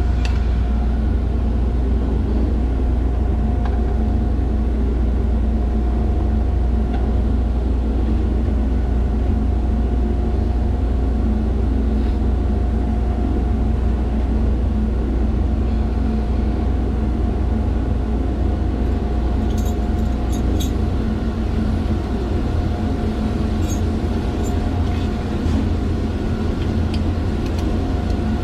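Chiller plant machinery running steadily: a heavy low rumble with a constant mechanical hum, and a few light metallic clicks a little past the middle.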